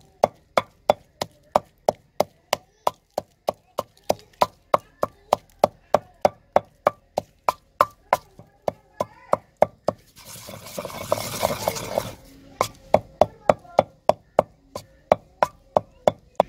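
Wooden pestle pounding dried red chillies in a stone mortar: steady, even knocks about three a second. About ten seconds in, a burst of noise lasting about two seconds breaks in, and then the knocking goes on.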